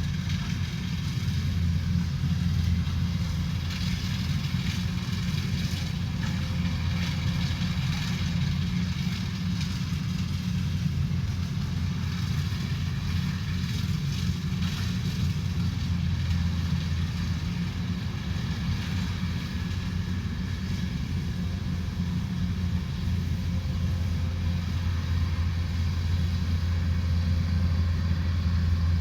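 Combine harvester running steadily: a deep, even engine drone with a fainter rattling hiss above it, growing a little louder near the end.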